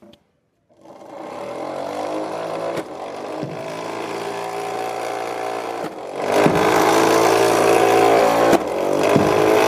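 Electric motor of a hooded flywheel shooter spinning up about a second in, then running at speed with a steady whine. It gets louder later on, and a few short knocks and dips in the sound mark wiffle balls being fed through the spinning wheel.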